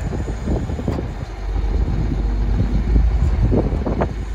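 GMC C7500 service truck running steadily with its PTO driving the hydraulics for the crane, with wind rumbling on the microphone.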